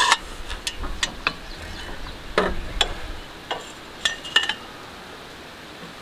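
Metal hand tools clinking and clanking: a wrench and bar being handled while barring over a seized engine by hand. About a dozen sharp metallic clinks with a short ring, loudest at the start and again about four seconds in.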